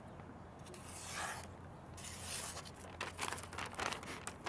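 A freshly sharpened, very thin CPM 10V knife slicing damp phonebook paper to test its edge: two soft swishes through the paper about a second apart, then paper rustling and light crinkling near the end.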